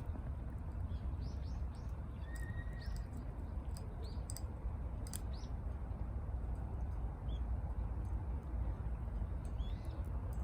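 Small wood fire crackling with a few sharp pops over a steady low rumble, with birds chirping a few times in the first few seconds.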